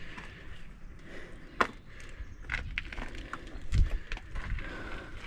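Irregular footsteps and knocks on a wooden structure: a sharp crack about a second and a half in and a heavy thump near four seconds, with scattered smaller knocks and scrapes between.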